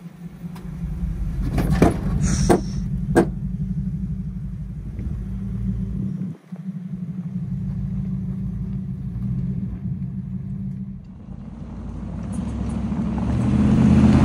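Toyota 4Runner's 2UZ V8 engine running low and steady as the truck crawls over rock ledges, with a few sharp knocks about two to three seconds in. After a brief break the engine runs on and grows louder near the end, with rising tyre noise on a gravel track as the truck approaches.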